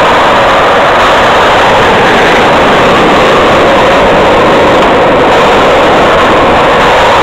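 Skateboard wheels rolling fast on a concrete parking-garage floor: a loud, steady rolling noise.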